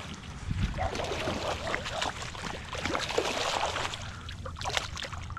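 Irregular water splashing, as from a hooked peacock bass thrashing at the surface.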